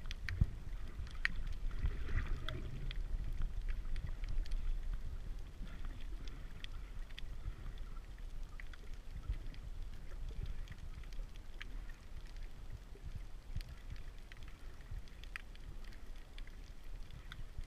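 Underwater ambience from a camera below the surface: a steady low, muffled rumble of moving water with scattered sharp clicks and crackles.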